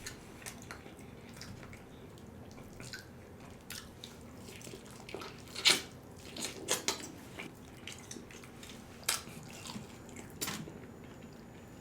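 Close-miked eating of fried chicken: irregular wet mouth clicks and smacks of chewing, with a few sharper ones about halfway through and again near the end.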